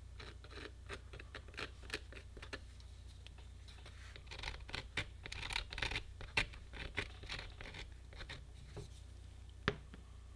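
Faint scratching and light clicks as a small plastic adhesive bottle's tip is worked along a PVC pipe, with a sharper click near the end as the bottle is set down on the table.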